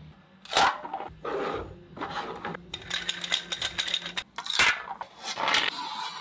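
White 3D-printed plastic parts and a spring-steel printer sheet being handled: scrapes, rubbing and light clicks and knocks, with a quick run of clicks about halfway through.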